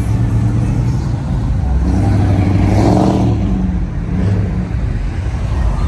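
A car passing on the street: its engine and tyre noise swell to a peak about three seconds in and fade away, over a steady low hum.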